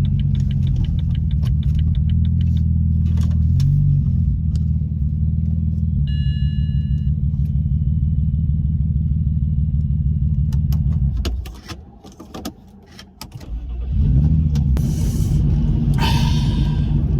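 BMW 335i's twin-turbo N54 inline-six running steadily, with cylinder 4 suspected of misfiring, which the owner fears is a melted piston. A short electronic chime sounds about six seconds in. The engine sound drops away for about three seconds past the halfway point, then comes back.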